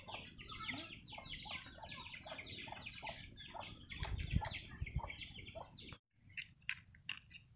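Chickens calling: a dense run of short, high, falling peeps, many overlapping, that stops abruptly about six seconds in. A few low thumps come a little after four seconds, and after the stop there are only faint clicks.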